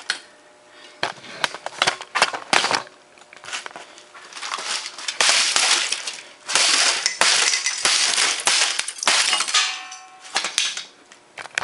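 Hammer smashing a Compaq Presario F500 laptop's plastic case and parts against a concrete floor: a run of loud cracking, crunching blows with short pauses between them, and a brief ringing tone near the end.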